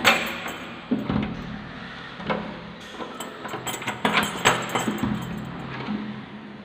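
Metal lever door handle and latch clicking and rattling as a wooden interior door is worked open, with a series of sharp clicks and knocks, bunched together between about three and four and a half seconds in.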